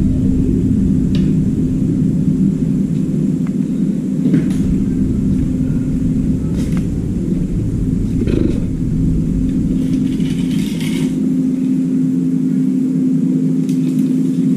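A steady low mechanical rumble with a constant hum. A few light clicks and knocks come through, and there is a short hiss about ten seconds in.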